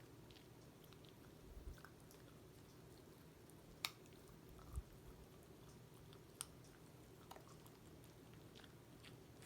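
Dog chewing a treat: faint, scattered gnawing clicks and crunches, with a sharper click about four seconds in and a soft thump just after. A low, steady hum sits underneath.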